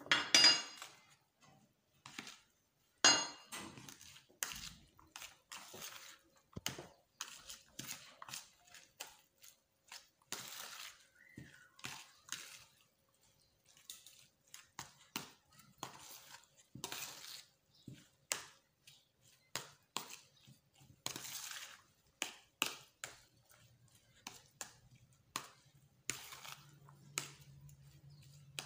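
Metal fork and spoon stirring a thick rice mixture in a plastic tub: irregular clicks, clinks and scrapes of the utensils against the container, loudest just after the start and again about three seconds in, where one strike rings briefly.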